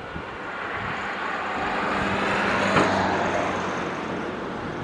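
ATR 72-600 turboprop's two engines and propellers droning on final approach with a steady low hum, swelling as the aircraft passes close, loudest about three seconds in, then fading. A short knock sounds at the loudest point.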